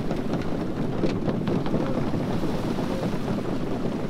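Small waves washing onto a beach with wind on the microphone, and a crowd's scattered voices underneath.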